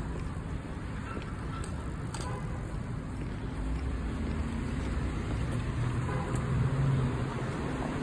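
Street traffic: a steady low rumble of car engines and tyres, with one engine's hum swelling louder about six to seven seconds in.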